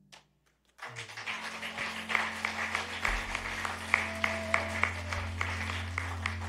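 Congregation applauding, starting about a second in after a brief near-silence, with many sharp individual claps. A low sustained note is held underneath.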